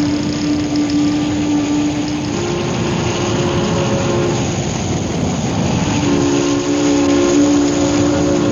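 Ship's horn blowing long blasts: a single low note held for about two seconds, then a higher two-note blast, and after a short gap a fuller chord of several notes held on, all over a steady rushing noise.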